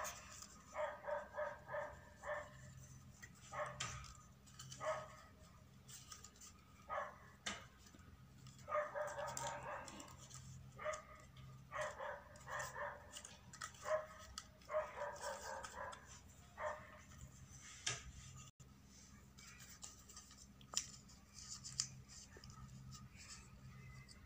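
Repeated short pitched animal calls, coming in bursts every second or two and thinning out toward the end, with light clicks and crinkles of paper being handled.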